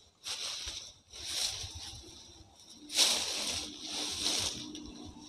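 Rustling of leaves, vines and undergrowth with footsteps as someone pushes through thick vegetation, in several bursts, the loudest about three seconds in.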